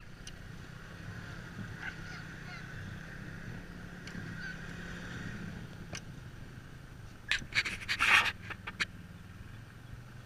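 Dog sled running over a packed snow trail: steady sled and runner noise with a low rumble and a few faint high squeals. About seven seconds in comes a quick run of loud sharp knocks and rattles as the sled jolts.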